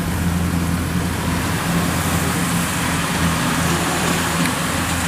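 Kubota DC-105X diesel combine harvesters running steadily while cutting and threshing rice: a constant engine drone under an even hiss.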